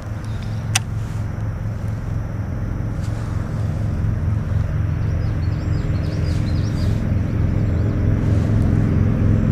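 A low, steady engine drone that slowly grows louder.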